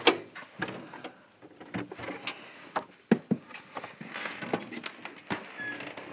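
Scattered clicks and knocks of a door being handled: a brass doorknob turned and the door opened, with a brief squeak about five and a half seconds in.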